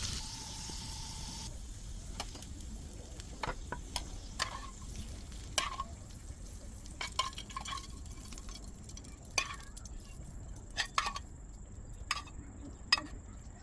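Green chili, garlic and sesame seeds sizzling in hot oil for a tarka, the sizzle stopping about a second and a half in. After that, scattered light clicks and taps of a utensil against the pan.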